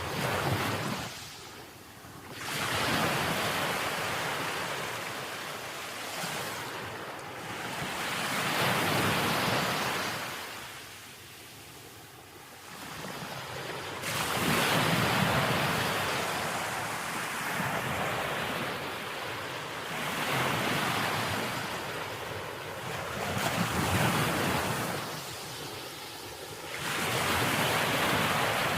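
Ocean waves breaking on a beach, the surf rising and falling in slow surges every few seconds with brief lulls between, with some wind on the microphone.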